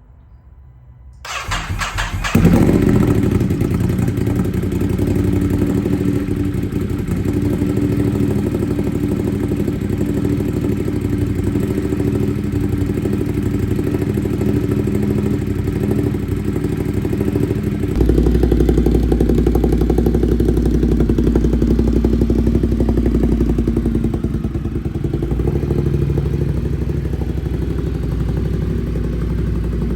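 Ducati Monster's L-twin engine breathing through an SC Project aftermarket exhaust, started about a second in and catching a moment later, then idling loudly and steadily. Partway through, the idle gets deeper and louder.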